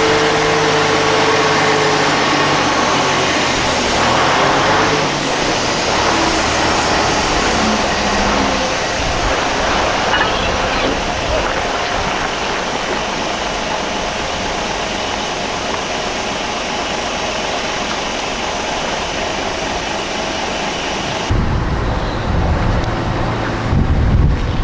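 A heavy road vehicle's engine running amid steady outdoor noise. About three-quarters of the way through, the sound cuts to a low rumble of wind on the microphone.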